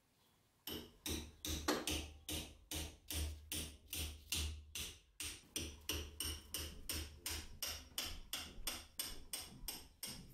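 Hammer blows on a steel rod used as a drift against the old wooden handle of a rusty meat cleaver in a vise, knocking the handle off the tang. The blows are sharp metal-on-metal strikes, about three a second, in a steady rhythm that starts just under a second in.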